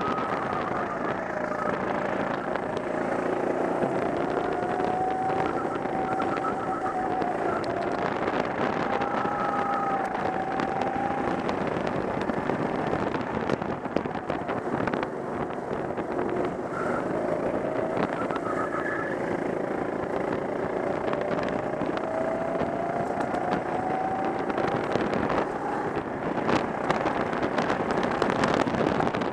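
Go-kart engine running under load, its pitch climbing as it accelerates down the straights and dropping back into the corners, twice over.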